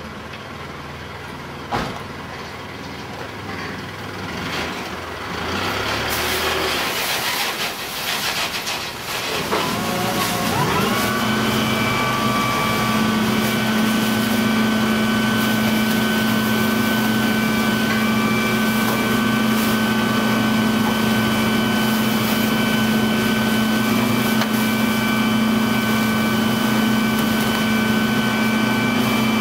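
Rotary-press garbage truck running at low idle. About ten seconds in, the engine rises to a steady, higher-pitched drone with a mechanical whine as the rear packer is driven to take in the loaded bags, and it holds there.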